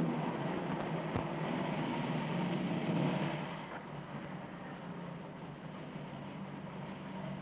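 Car engine running with a steady low hum, louder for about the first three seconds, then quieter and steady.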